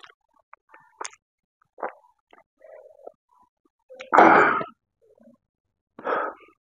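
Close-up eating sounds from a mukbang eater: scattered small wet clicks and smacks of chewing, then a loud, noisy throat-and-breath sound from the eater about four seconds in and a shorter one about six seconds in.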